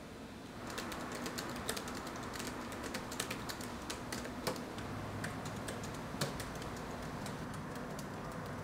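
Fast, irregular typing on a laptop keyboard, with a quick run of light key clicks starting about a second in.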